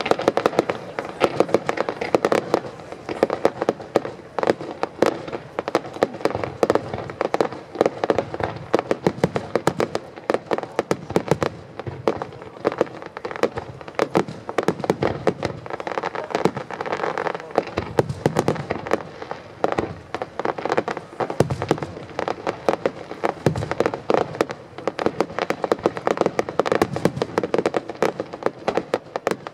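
Aerial display fireworks going off without a let-up: a dense, rapid stream of cracks and pops.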